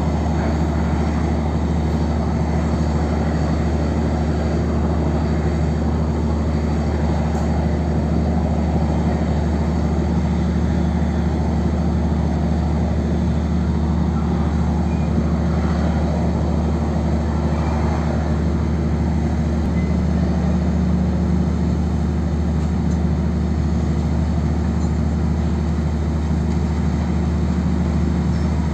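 Boat engine running steadily, a low even drone that neither rises nor falls.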